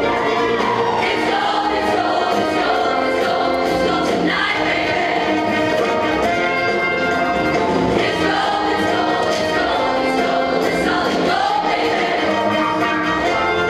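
A show choir singing with band accompaniment, many voices in harmony holding sustained notes.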